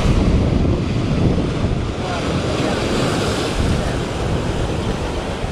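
Sea surf washing in steadily under wind rumbling on the microphone, with a wave surging in a little over two seconds in.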